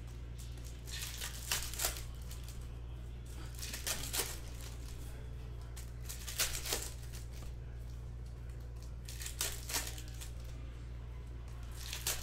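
Trading-card pack wrappers crinkling and tearing in short bursts every two to three seconds, over a steady low hum.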